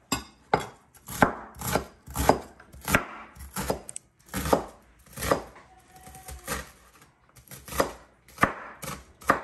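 Kitchen knife slicing a red onion on a plastic cutting board: a run of sharp knocks as the blade strikes the board, about one to two a second and slightly uneven.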